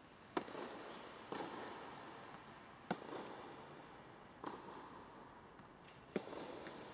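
Tennis ball struck by racquets in a rally: a serve about half a second in, then four more shots that alternate between a sharp near hit and a softer far one. Each hit rings on in the echo of the indoor court.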